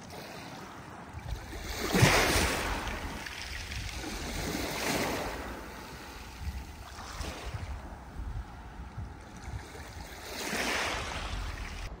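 Strong storm wind gusting, rising and falling in several swells with the strongest about two seconds in, over a low rumble of wind buffeting the microphone.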